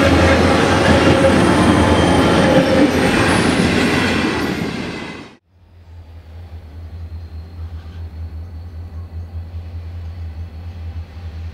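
A pair of L class diesel-electric locomotives hauling an empty grain train pass close by, engines running loud with the wheels and wagons rumbling on the rails. The sound cuts off about five seconds in. After that there is only a much fainter, steady low diesel rumble from the train approaching in the distance.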